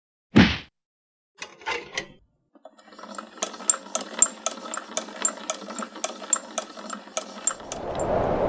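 Large clockwork gears turning: a steady mechanical whir with regular sharp clicks about three times a second, starting about three seconds in. A short loud burst comes about half a second in, followed by a few scattered clicks, and a low wind-like rush swells in near the end.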